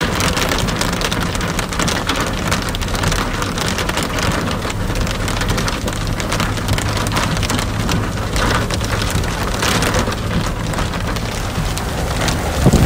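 Steady heavy rain pattering on a moving car's body and windshield, dense fine tapping with no let-up, over the car's steady low engine and road rumble.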